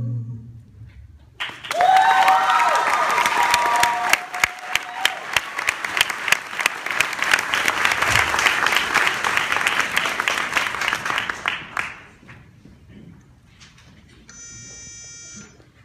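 An a cappella group's last held chord fades out, then an audience applauds and cheers with high whoops for about ten seconds before it dies away. A brief high tone sounds near the end.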